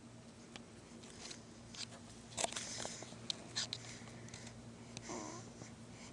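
Soft snuffling and clicking mouth noises, then one short whimper that falls in pitch about five seconds in.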